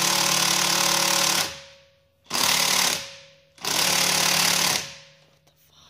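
Cordless impact wrench hammering on a seized wheel lug bolt in three bursts: a long one ending about a second and a half in, a short one, then another longer one. The bolt does not break loose.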